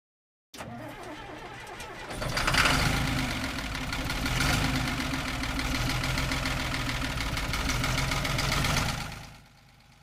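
An engine starts and runs steadily with an even low pulsing, then fades out near the end.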